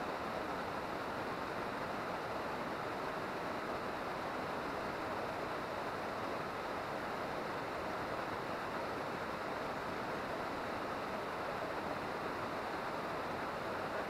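Waterfall pouring down a high cliff into its plunge pool: a steady, unchanging rush of falling water.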